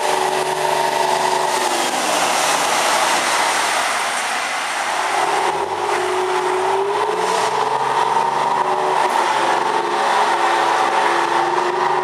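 Diesel-electric rail motor's engine running as the railcar pulls away under power. Its pitch drops about two seconds in, climbs again around six seconds, and rises once more near the end.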